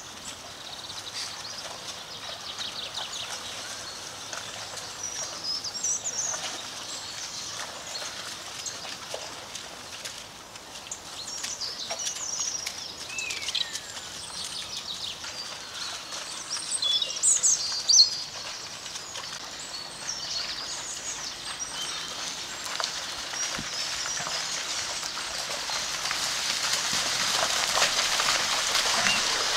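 Small birds chirping and whistling, one giving a falling note about halfway through, with a brief sharp sound a little after halfway. Near the end a steady hiss of splashing water builds as cattle wade through shallow floodwater.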